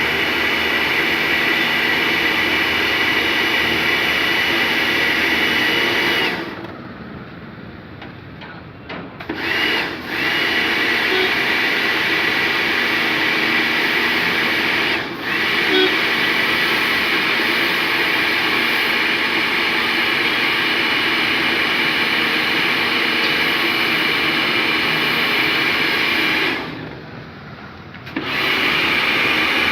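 A power tool's electric motor running with a steady whine. It is switched off about six seconds in and restarted a few seconds later, with a short blip just before. It dips for a moment midway, then is switched off again near the end and restarted about a second and a half later.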